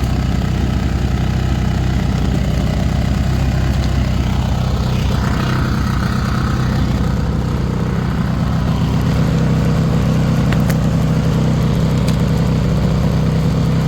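WEN 4500-watt inverter generator's engine running continuously, getting a little louder past the middle. It runs unevenly, missing in a way the owner calls weird.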